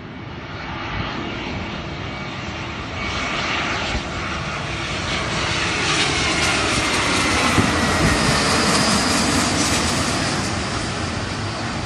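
Twin-engine jet airliner on landing approach with its gear down, passing low overhead; its engine noise grows louder as it nears. A whine falls in pitch as it goes by, about two-thirds of the way in.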